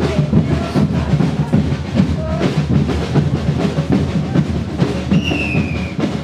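Drums beating a dense, steady rhythm with other percussion. A short high, slightly falling note sounds over them about five seconds in.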